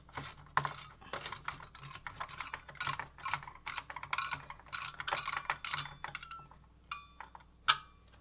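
Rapid small clicks and rattles of a screwdriver and metal parts as the CPU heatsink's screws are driven in. The clicks are dense for about six seconds, then sparse, with one sharp click near the end.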